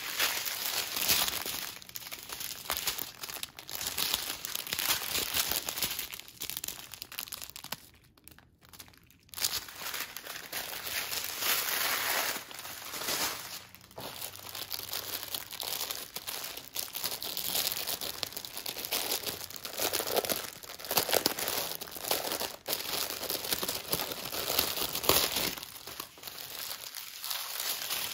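Small plastic bags of diamond-painting drills crinkling and rustling as they are picked up and sorted by hand, with a brief pause about eight seconds in.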